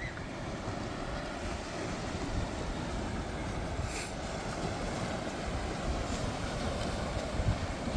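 Steady rush of water from the waterfall and surf, with wind rumbling on the microphone.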